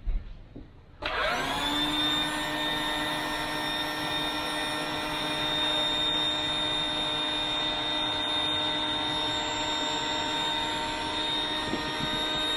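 Electric air pump switching on about a second in and running with a steady motor whine, inflating an inflatable boat.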